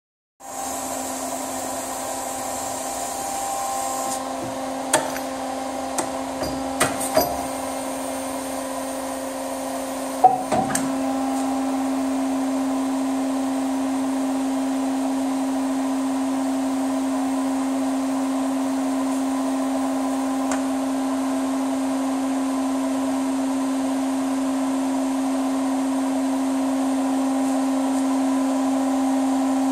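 PE500 machine tool running its automatic workpiece loader cycle: a steady machine hum with a few sharp metallic clunks and clicks between about five and eleven seconds in, after which the hum is louder.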